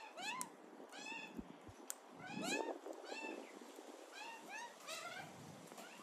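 Crimson rosellas calling: a run of short calls that rise and fall in pitch, coming in quick clusters, the loudest about two and a half seconds in.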